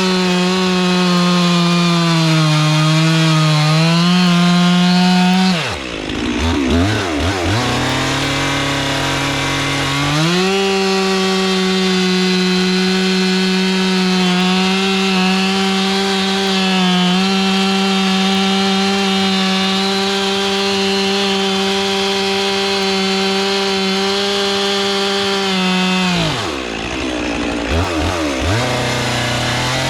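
Stihl 400C two-stroke chainsaw cutting through logs at full throttle, its engine note held high and steady. Twice, about six seconds in and again near the end, the revs fall away between cuts and climb back up.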